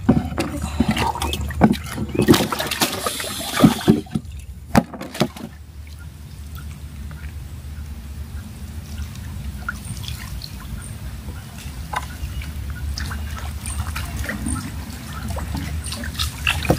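Knocks and clatter of a caught fish being handled against a wooden boat's planks for the first few seconds. Then a steady low background with faint water trickling and small drips as a bait is worked on the surface with a bamboo pole.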